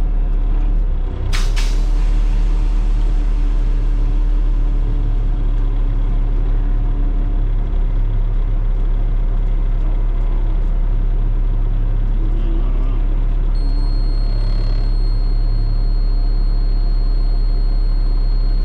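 Concrete mixer truck's diesel engine running steadily, with a short hiss of the air brakes about a second in.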